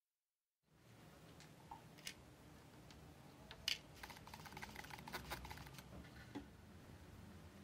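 Faint clicks and taps as a degreaser trigger spray bottle is worked over small parts in a plastic tub, with a quick run of clicks from about four to five and a half seconds in. A brief dead silence at the start.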